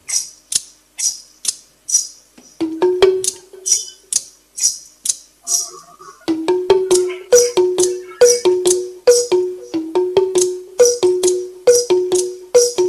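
Recorded music from a band playing all-bamboo instruments: sharp bamboo percussion strokes in a steady beat, about two a second. A low pitched note joins about two and a half seconds in, and from about six seconds in the beat gets denser over a repeating two-note figure.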